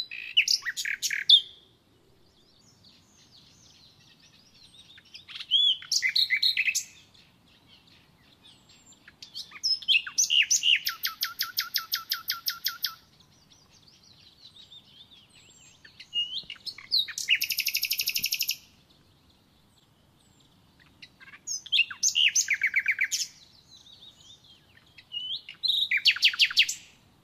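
A songbird singing: six separate phrases of fast trilled notes, each one to three seconds long, with pauses of a few seconds between them.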